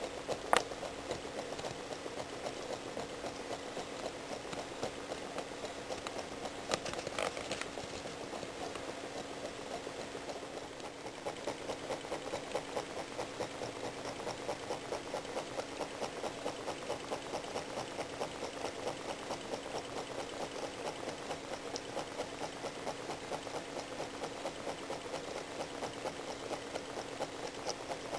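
Small homemade Stirling engine running, its crank and linkage ticking in a fast, even rhythm over a steady low hum. A sharp click about half a second in is the loudest sound, with a fainter one around seven seconds.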